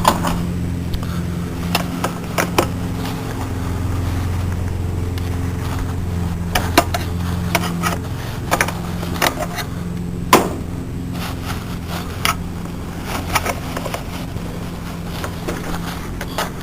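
Scattered metal clicks and taps as a wrench and fingers work the bolt on the bottom of a Tecumseh engine's carburetor bowl loose, the sharpest knock about ten seconds in, over a steady low hum.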